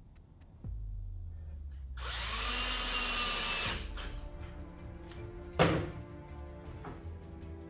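Power drill driving a square-drive Robertson screw, whirring for about a second and a half. A sharp knock follows a couple of seconds later.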